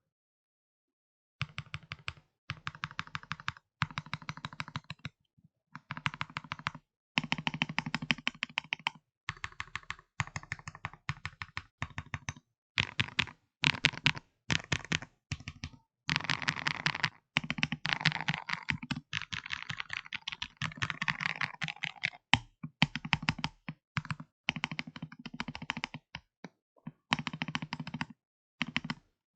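Akko ACR75 mechanical keyboard, fitted with lubed Akko Green Matcha switches and modded with tape and PE foam, being typed on in fast bursts of keystrokes with brief pauses between them. The typing starts about a second and a half in.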